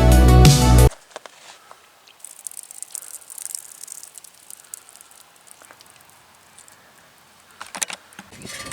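Background music that cuts off suddenly about a second in. After it come faint scattered clicks and small handling noises of parts being worked on, with a few sharper clicks near the end.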